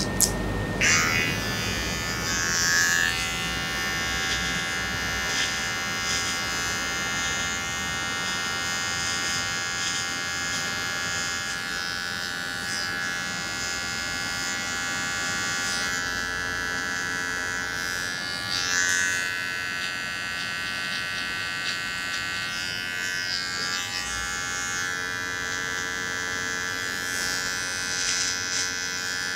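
Electric hair clippers buzzing steadily while cutting hair, with a few brief, brighter stretches of cutting noise as the blade works through the hair.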